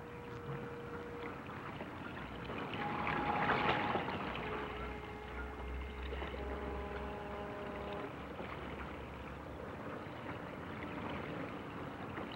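Harbour water rushing and splashing, with ship whistles sounding over it: single held notes, a higher one during a louder surge of water about three seconds in, then a several-note chord whistle from about six to eight seconds.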